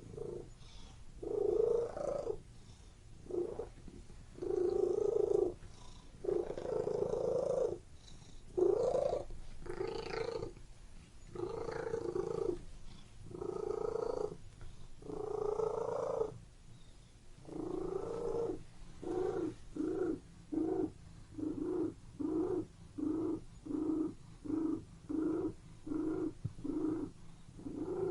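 Domestic cat purring, in long swells of about a second each with short pauses between. In the second half the purr turns to quicker, shorter pulses about twice a second.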